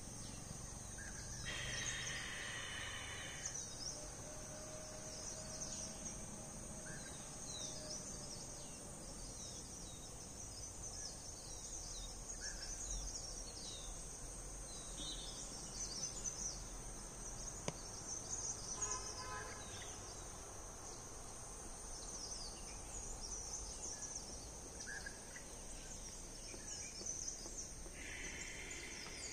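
Outdoor ambience: a steady, high-pitched chorus of insects, with a few short bird calls scattered through it.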